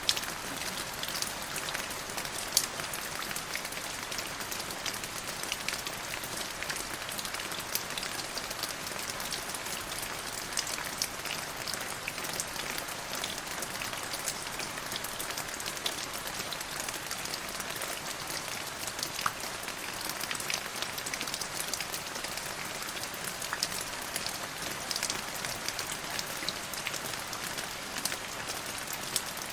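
Steady rain falling on a hard surface: an even hiss dotted with many sharp individual drop ticks.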